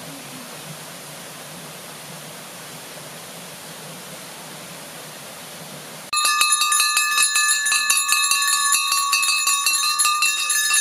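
A steady hiss, then, about six seconds in, hanging metal temple bells rung rapidly by hand, clanging and ringing continuously.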